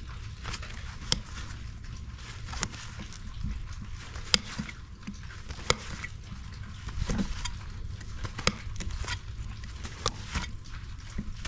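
Hoof nippers cutting a horse's front hoof wall during a trim: a series of sharp snips, irregularly spaced about a second apart, the loudest about four seconds in, over a steady low rumble.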